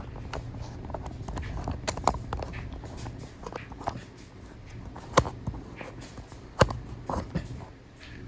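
Scattered sharp knocks and clicks over a steady low hum; the loudest two come about five and six and a half seconds in.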